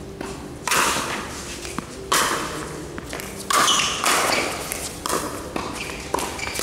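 Pickleball rally: paddles striking a hard plastic ball back and forth, a string of sharp pops about a second apart, each with a short echo.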